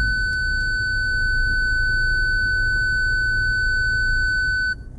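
A steady, high electronic beep tone, one unbroken pitch held for nearly five seconds, that cuts off suddenly near the end.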